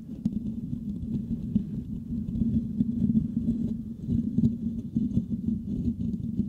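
Fingertips scratching and rubbing the metal mesh grille of a Blue Yeti USB microphone. The result is a dense, rapid, deep crackling scratch that goes on without a break.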